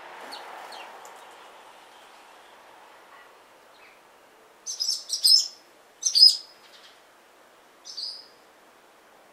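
Small birds giving sharp, high chirping calls in three short bursts, about five, six and eight seconds in.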